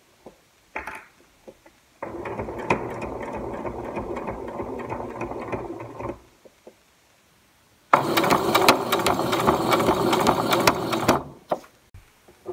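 Electric domestic sewing machine stitching an invisible zip with an invisible-zipper presser foot, in two runs of about four and three seconds with a pause between.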